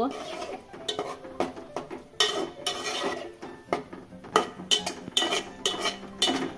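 Spatula stirring and scraping thick prawn curry in an aluminium pot, with a quick, irregular run of scrapes and clinks against the pot's sides as the curry is cooked down.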